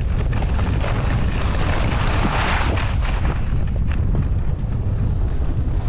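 Wind buffeting the microphone of a skier moving downhill, over the hiss of skis sliding on snow, which swells for a moment about two seconds in.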